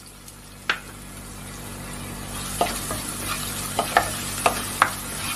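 Freshly added chopped onion frying in hot oil in a nonstick pot, the sizzle building steadily, while a cooking spoon stirs it and knocks against the pot once about a second in, then clicks against it several more times in the second half.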